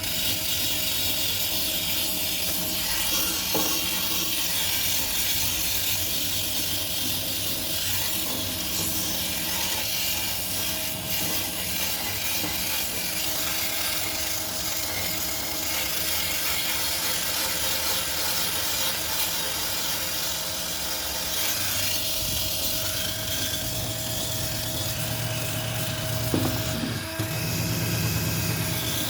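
Continuous scrubbing and rubbing on a street light housing as grime is cleaned off, a steady scratchy sound.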